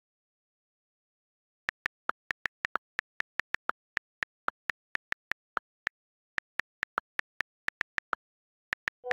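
A quick run of short, sharp clicks, about four a second with two brief pauses, starting about two seconds in, with dead silence between them.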